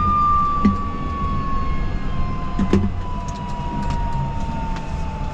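Aérospatiale Gazelle helicopter running, a steady low rumble of rotor and turbine with a high whine that slowly falls in pitch.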